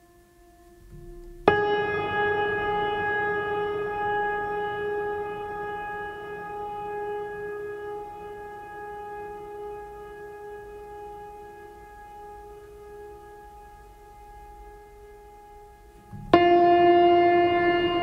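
Long, eerie horn-like tones rich in overtones. One blast starts suddenly about a second and a half in and fades slowly over some fourteen seconds. Another starts just as abruptly near the end.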